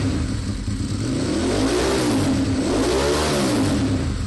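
A vehicle engine running and revving twice: its pitch swells up and falls back about two seconds in, and again about a second later.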